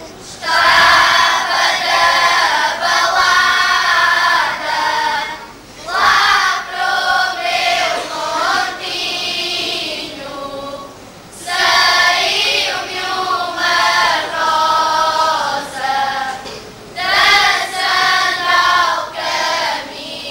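Children's choir singing cante alentejano, Alentejo folk song without instruments, in long phrases with short pauses for breath between them.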